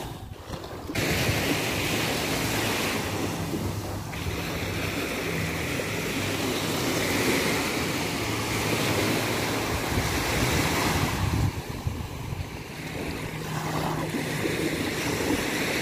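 Small waves washing onto a sandy beach, a steady surf noise, with some wind on the microphone.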